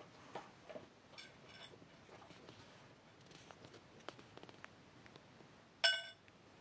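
Small stainless steel dog bowl being handled on a wooden deck: light knocks and scrapes, a faint ring about a second in, then one loud metallic clang near the end that rings briefly.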